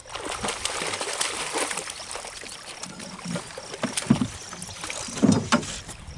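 Water splashing and trickling, with scattered clicks and a few dull knocks near the end.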